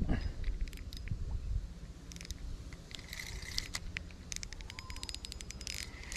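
Fixed-spool reel clicking in runs of quick ticks as a hooked carp is played on a bent rod, over a low rumble.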